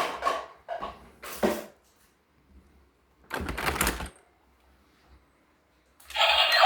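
A few short clicks and scrapes, then a longer rustle about three seconds in; a loud burst of music starts suddenly near the end.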